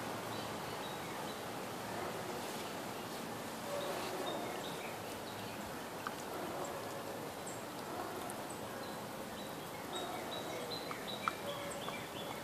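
Steady outdoor background noise with faint, scattered high bird chirps and a few sharp clicks.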